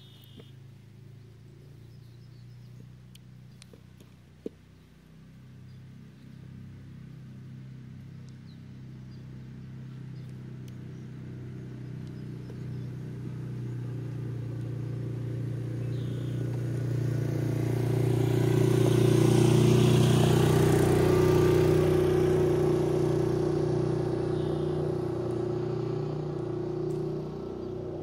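An engine passing by with a steady hum, growing louder over more than ten seconds, loudest about twenty seconds in, then fading away.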